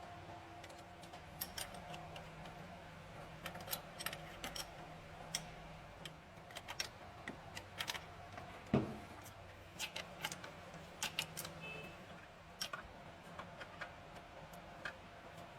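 Irregular light clicks and taps, like small metal parts or hand tools being handled, over a faint steady hum. One louder knock comes about nine seconds in.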